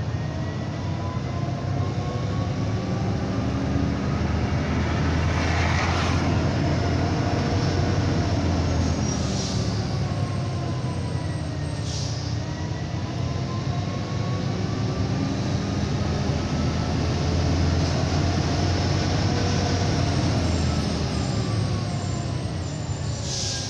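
Scania 113's straight-six diesel heard from inside the cab, running in gear down a long mountain grade so the engine holds the truck back; its pitch drifts slowly up and down. A few brief hisses break in along the way.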